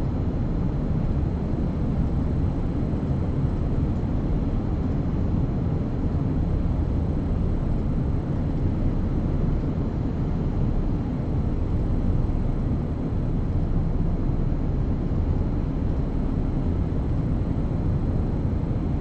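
Steady low rumbling room noise with no speech, even throughout, like ventilation or air-conditioning noise picked up by the talk's microphone.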